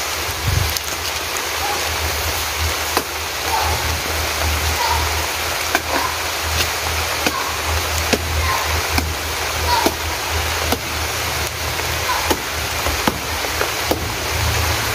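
Bolo knife chopping into the soft, fibrous trunk of a banana plant, cutting it down to harvest its mature bunch: a steady series of sharp strikes, roughly one every second. Under them runs a steady rushing noise.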